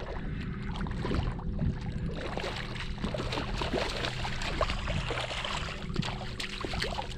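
A hooked redfish thrashing and splashing at the surface of shallow water as it is reeled in, a run of irregular splashes.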